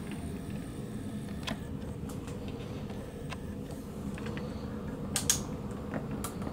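Scattered small clicks and knocks of hands handling a model police car on its display turntable, over a steady low hum. The loudest clicks come a little after five seconds in.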